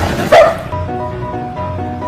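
A dog barks twice, once right at the start and louder about a third of a second in, over background piano music.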